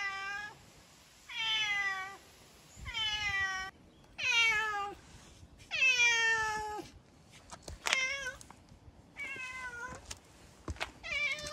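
A hungry stray cat meowing over and over, about eight drawn-out meows, each falling in pitch, with short pauses between them.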